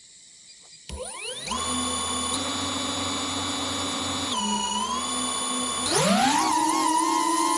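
DJI Avata 2 FPV drone's motors and propellers spinning up about a second in with a rising whine, then settling into a steady whine. The pitch sags briefly around four and a half seconds, then climbs and grows louder at about six seconds as the throttle is raised.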